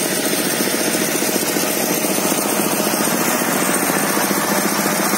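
A motor or engine running steadily with a fast, even pulsing.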